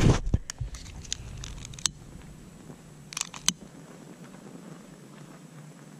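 An action camera being set down on soft dirt, a brief low rumbling knock of handling, followed by quiet with a few sharp scattered clicks and taps, including two close together about three seconds in.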